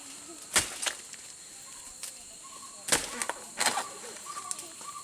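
Rice stalks swishing in about four short, sharp strokes of rice-harvest work.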